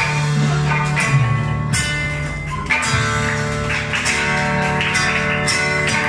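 Live Okinawan folk music: a sanshin and an acoustic guitar plucked and strummed together.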